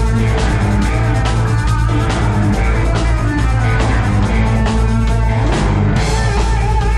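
Rock band playing live through the PA at a sound check: drum kit, electric guitar and bass, with no vocals standing out.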